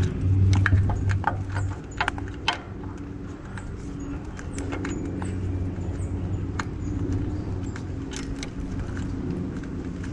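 Plastic wire connectors and cables clicking and rattling as they are handled and pushed up through the bottom of an e-bike frame, with scattered sharp clicks, most of them in the first few seconds, over a low steady hum.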